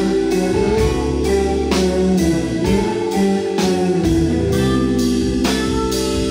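A rock band playing live: electric guitar with held notes over electric bass and drums, a cymbal struck about twice a second.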